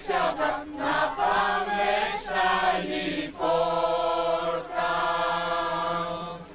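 Mixed choir singing the close of a Greek Christmas carol (kalanta). The last line is drawn out into two long held chords, and the second fades away near the end.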